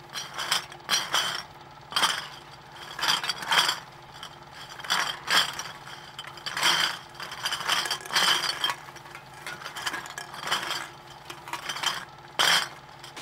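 Glass bottles clinking and rattling in a rotating bottle-washing machine, in irregular clusters about once a second, over a faint steady hum.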